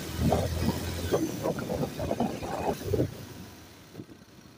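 Motorcycle riding along, with wind and engine noise buffeting the handlebar-mounted microphone; about three seconds in the noise falls away sharply as the bike slows down.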